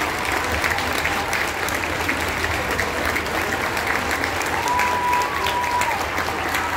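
Stadium crowd applauding, a dense patter of many hands clapping. About two-thirds of the way through, one drawn-out high cheer rises a little, then drops away.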